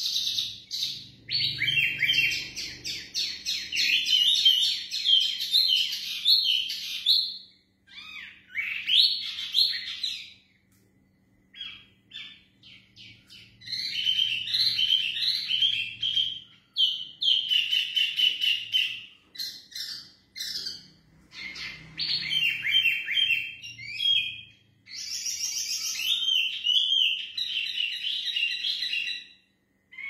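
A pair of caged wambi mini songbirds singing persistently: long bursts of rapid, high chirping and twittering notes, broken by short pauses of a second or more.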